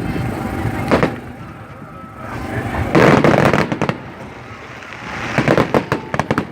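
Fireworks exploding: a sharp bang about a second in, a longer, louder blast about three seconds in, then a quick run of sharp cracks near the end, with a rumble between the explosions.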